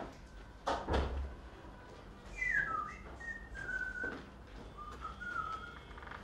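A thump just under a second in, then a person whistling a casual tune of a few short, gliding notes.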